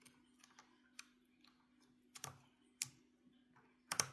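Faint, irregular clicks and ticks of a precision screwdriver turning a small screw in a gun's pistol-grip motor plate. The screw keeps spinning without tightening because its hole is stripped. A few sharper clicks come about two seconds in and near the end.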